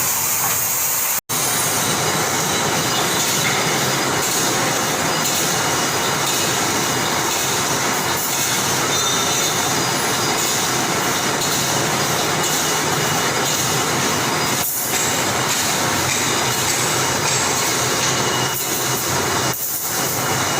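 Wire mesh welding machine running: a steady, loud, clattering mechanical din. It cuts out for an instant about a second in.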